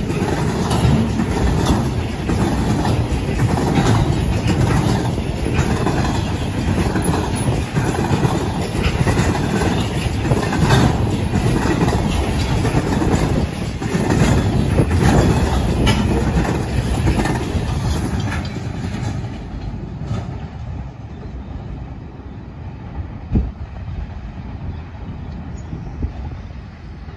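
Container wagons of a long intermodal freight train rolling past close by, their wheels clacking over the rail joints. About two-thirds of the way through the sound drops to a much quieter, distant rumble of the train.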